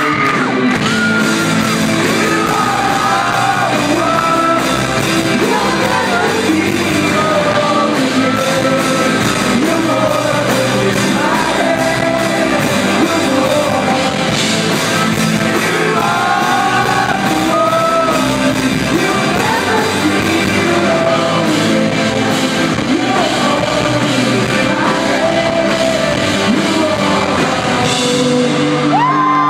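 Live rock band playing loud, with a female lead vocal over electric guitar and a steady drum beat, heard from within the audience.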